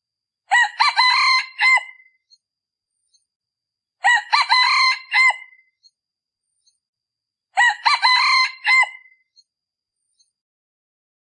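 Male red junglefowl decoy cock crowing three times, a short clipped crow about every three and a half seconds, each crow ending in a sharp rising-falling final note.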